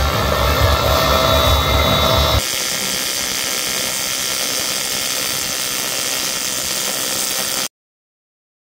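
TIG welding arc on an aluminium bracket: a loud buzzing hum for the first two seconds or so, then a steady hiss, cutting off to silence near the end.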